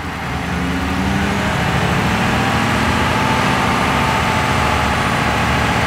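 Ford 6.7-litre Power Stroke diesel V8, just started cold, brought up to about 1500 rpm for a crankcase blow-by reading. It speeds up over the first second and then runs steadily, with a faint whine that rises slightly in pitch.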